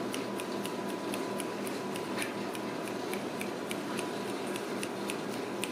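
Quick, fairly even ticking, about four light clicks a second, over a steady room hum.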